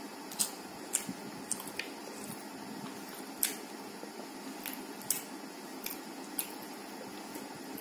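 Scattered soft, wet clicks and squishes of rumali roti being torn by hand and scooped through tarka on a plate, over a steady background hum.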